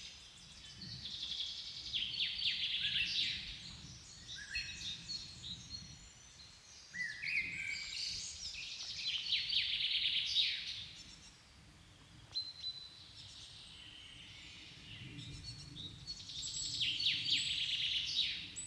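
A songbird singing the same short phrase three times, about every seven seconds: each phrase is a run of quick notes ending in a rapid trill. There is a low rumble of wind or handling noise underneath.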